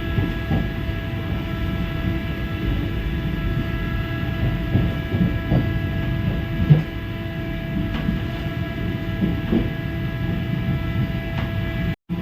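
Vande Bharat Express train running at speed, heard from on board: a steady rumble with a constant high whine of several held tones, and occasional knocks, the loudest a little past the middle.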